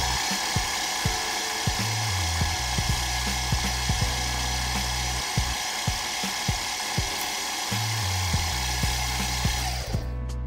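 Milling machine spindle running with a steady high whine that stops about ten seconds in, with a cutter held just above a brass block while a paper slip is used to touch off. Background music with a steady beat plays underneath.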